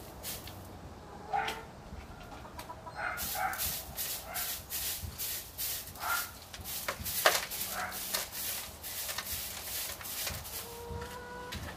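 A broom sweeping the mulch-and-dirt floor of a chicken run: a quick run of swishing strokes from about three seconds in. Short calls from the hens come now and then over it.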